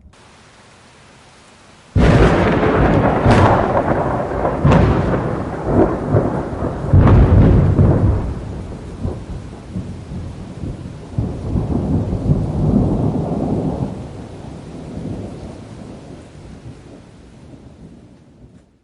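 Close thunder strike over steady rain: a sudden loud crack about two seconds in, a few more sharp cracks, then a long rolling rumble that slowly fades away.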